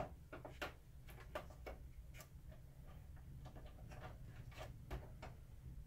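Faint, irregular small clicks and taps as a screwdriver and small parts are handled inside an opened projector's plastic and metal chassis, over a low steady hum.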